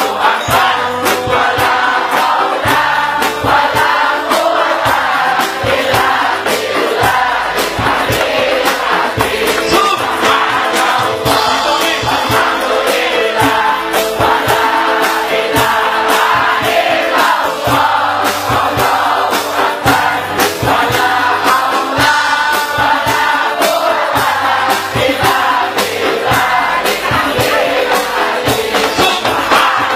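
Large crowd singing sholawat, Islamic devotional songs in praise of the Prophet, together over loud music with drum beats and a steady bass.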